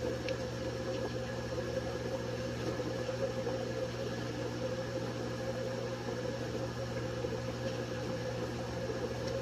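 Blender motor running steadily on a jar packed with chopped corn stalks and leaves that are bound up around the blades, so the load barely turns over.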